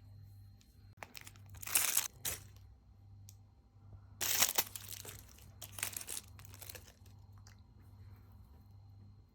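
Plastic packaging being crinkled and torn open in several short bursts, the loudest about two seconds and four and a half seconds in.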